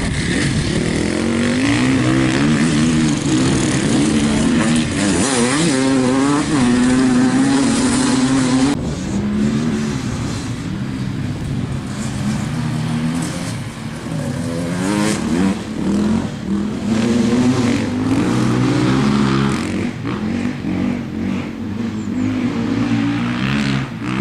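Off-road vehicle engines running hard and revving, the pitch repeatedly rising and falling. The sound changes abruptly about nine seconds in, then the revving carries on.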